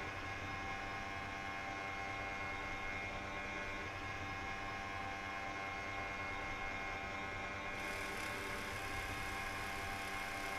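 A steady, unchanging droning hum made of many held tones over a soft hiss.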